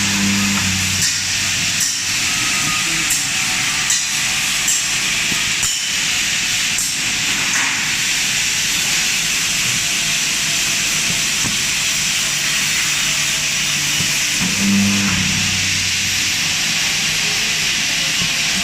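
Wire mesh welding machine running: a loud, steady hiss with irregular sharp clicks through the first seven seconds or so.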